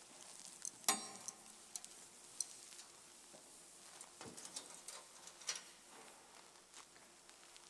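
Faint clicks and metallic clinks as altar vessels are handled. One sharper clink about a second in rings briefly, and a few lighter taps follow.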